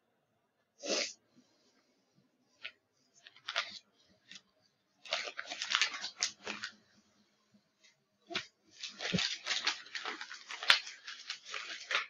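Sterile paper-and-plastic medical packaging being handled and peeled open, crinkling and tearing in short bursts, with two longer stretches of rustling in the second half. Small plastic parts tick now and then, with a sharp click near the end.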